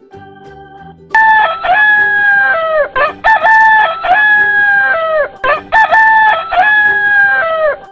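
Rooster crowing loudly three times in a row. Each crow lasts about two seconds and ends in a falling tail.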